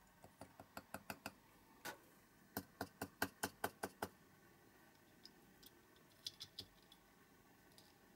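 Light, quick clicks and taps of metal tweezers handling a small clear plastic part against a jar and the work surface, in two fast runs of about five a second over the first four seconds, then a few fainter taps.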